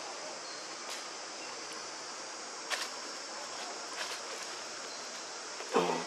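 Outdoor forest ambience: a steady high insect drone, with a few faint clicks and rustles of movement. A short pitched call near the end is the loudest sound.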